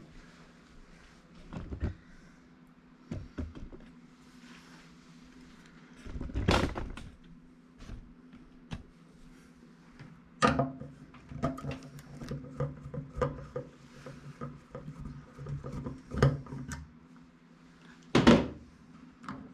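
Knocks, clicks and clunks of microwave parts being handled and screwed back together by hand, scattered and irregular, with the loudest clunks about six, ten and eighteen seconds in. A low steady hum runs underneath during the second half.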